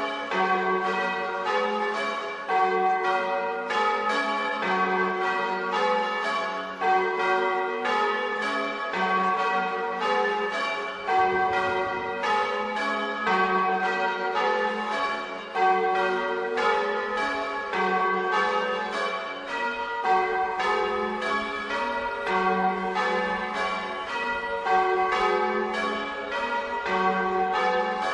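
A set of church bells rung in the Bolognese manner, several bells of different pitch striking in quick, unbroken succession, about three strokes a second, each stroke ringing on under the next.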